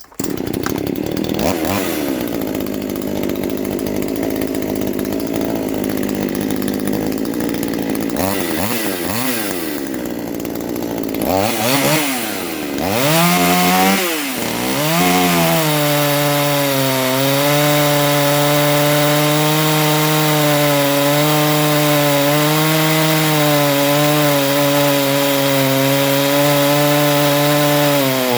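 Neo-tec NH841 chainsaw running, its engine pitch swinging up and down a few times about twelve seconds in, then held steady at high revs from about fifteen seconds on as it saws through a hardwood log.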